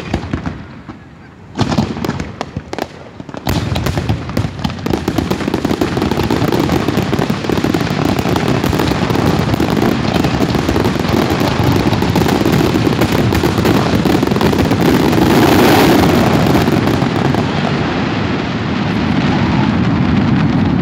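Aerial fireworks going off: a few separate bangs in the first few seconds, then from about four seconds in a dense, continuous barrage of bursts and crackling that swells to its loudest near three-quarters of the way through.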